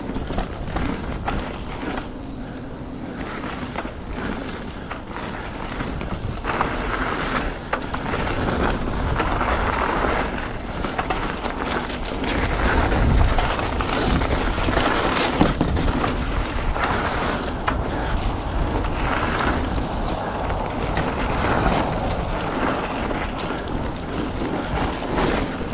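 Polygon Siskiu T7 mountain bike ridden fast along a dirt trail: tyres rolling over dirt and leaves, with knocks and rattles over bumps and wind rumbling on the camera's microphone. It gets louder about six seconds in.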